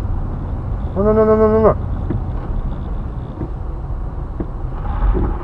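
Steady low rumble of a car's engine and tyres heard from inside the cabin while driving. About a second in, a man draws out a short 'nuuu'.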